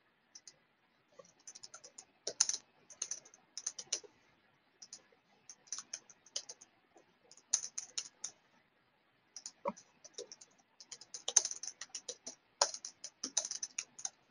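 Computer keyboard typing: bursts of quick keystrokes separated by short pauses.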